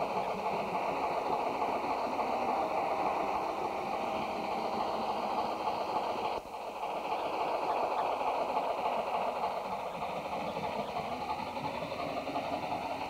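Model steam locomotive and its train running on the layout's track: a steady running rumble of motor and wheels, with a brief drop in level about six seconds in.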